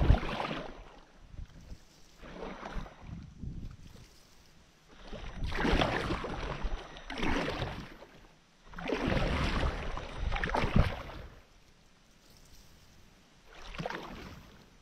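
Stand-up paddleboard paddle strokes: the blade splashing in and swishing through the water, one stroke every couple of seconds, with a sharp splash at the very start.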